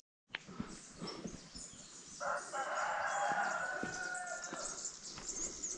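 A rooster crowing once: one long call that starts about two seconds in.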